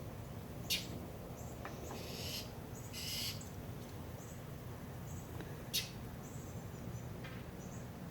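A real bird calling outdoors, heard faintly over a steady low hum, with short high chirps and two hissy bursts a couple of seconds in. Two sharp clicks stand out, one about a second in and one near the end.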